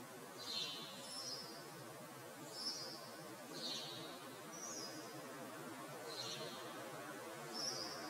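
Small songbird giving short, high-pitched calls, about seven in eight seconds, alternating between two pitches, over a steady low background hiss.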